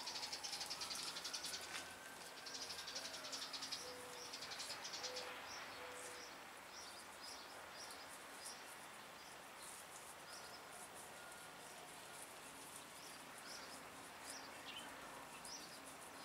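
Faint outdoor ambience with birds chirping now and then. A faint scratchy rubbing in the first couple of seconds fades out.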